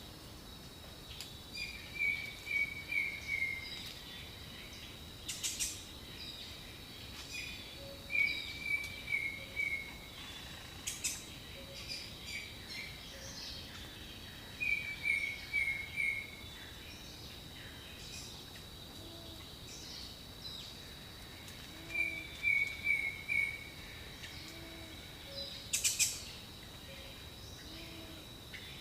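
Jungle ambience: a bird repeats a phrase of four or five quick notes, falling slightly in pitch, about every six or seven seconds. The phrase sits over a steady high insect drone, with a few short harsh calls and soft low hoots in the latter half.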